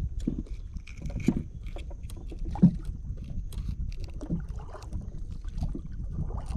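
Small fishing boat rocking on the water, with low rumbling water and handling noise, scattered knocks and clicks, and one louder thump about two and a half seconds in.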